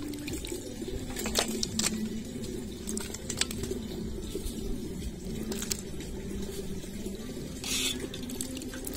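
Water splashing and sloshing in a steel basin as freshly caught malgi fish are washed, with a few sharp wet clicks as the fish are handled and a brief splash about eight seconds in.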